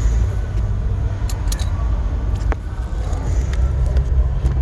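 A new cabin air filter being pushed into its plastic housing behind the glove box: a few light plastic clicks and scrapes over a steady low rumble.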